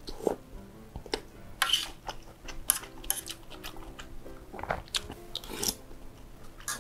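Close-miked eating sounds: a noodle strand slurped about the start, then chewing and wet smacking of spicy bakmie noodles in chili oil, in short sharp clicks with a few brief slurps.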